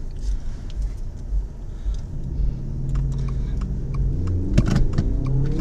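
Low, steady engine and traffic rumble heard from inside a stopped car's cabin. Over the last few seconds an engine note slowly rises in pitch, and a couple of sharp clicks come near the end.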